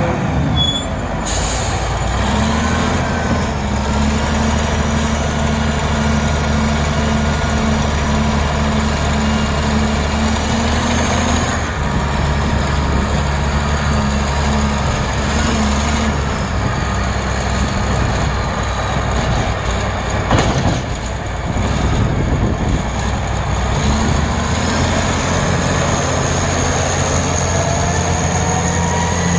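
Caterpillar 980B wheel loader's diesel engine running under load while plowing snow, its note stepping up about two seconds in and shifting as it works, with one sharp knock about twenty seconds in.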